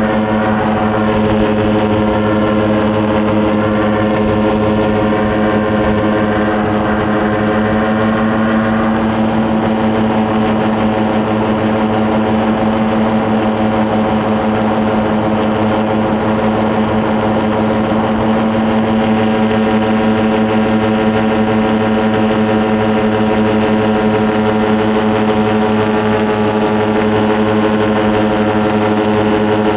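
Paramotor engine and propeller running at a steady speed. A second, wavering higher engine tone sits over it for roughly the first nine seconds.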